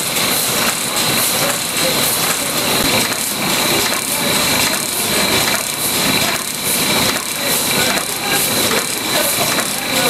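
Several wire-fed screw heading machines running together, a dense, rapid clatter of metal strokes with a steady high-pitched whine over it.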